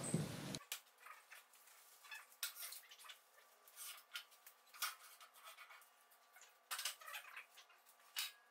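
Faint, scattered clicks and light taps, a dozen or so irregular strokes separated by near-silent gaps.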